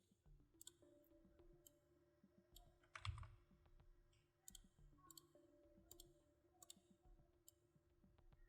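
Faint computer mouse clicks, a dozen or so at irregular intervals, over a low steady hum, with one louder short thump about three seconds in.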